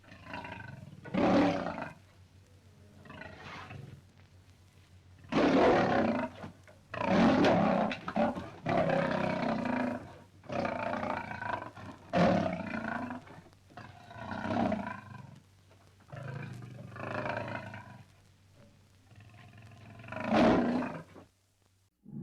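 Lion roaring: a series of about ten loud, drawn-out roars and grunts with short quiet gaps between them, the run ending just before the end.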